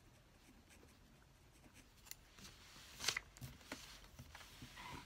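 Soft paper scrapes and rustles as a spiral-bound journaling Bible is shifted and smoothed on the table, with a louder brush about three seconds in.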